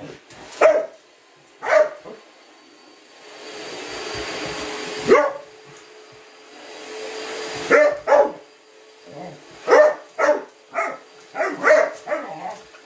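A small dog barking at a running stick vacuum cleaner: a dozen or so sharp barks, coming faster near the end. The vacuum's hiss swells up twice, and its motor hums steadily under the barks in the second half.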